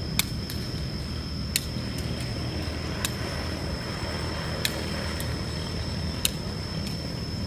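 A shuttlecock being hit back and forth in a rally: five sharp hits, about one every one and a half seconds, over a steady low rumble and a thin high whine.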